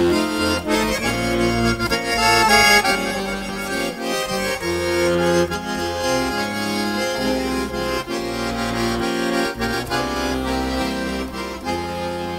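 Instrumental break of a slow song with accordion carrying the melody over chords and a bass line.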